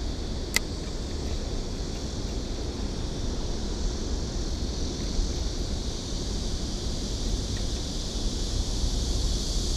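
Wind buffeting the microphone: a steady low rumble under an even high hiss, with a single sharp click about half a second in.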